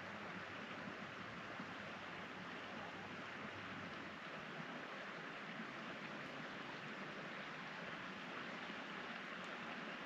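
A steady, even hiss with no calls, splashes or knocks.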